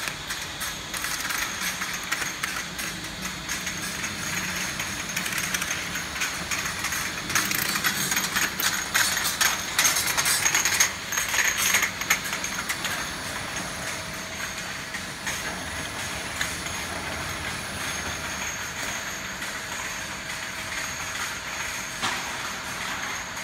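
Vertical rotary glass-bottle washing machine running: a dense, continuous clatter of the rotating mechanism and glass bottles over a hiss, louder for a few seconds around the middle.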